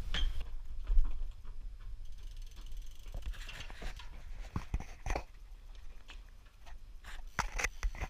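Mountain bike clicking and rattling as it is handled and then rolled over cobblestones, with a sharp knock about a second in.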